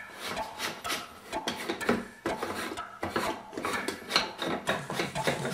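Metal stovetop moka pot being screwed together by hand, its threads scraping and grating in quick, irregular strokes.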